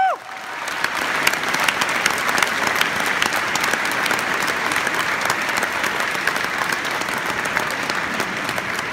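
Audience applauding steadily, a dense crackle of many hands clapping that begins as a final note of the music cuts off at the very start and eases slightly near the end.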